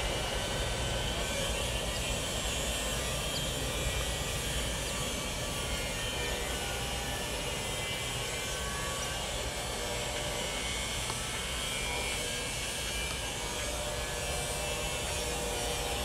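Steady rumble and rattle of an autorack freight train's cars rolling away on the rails, holding at an even level.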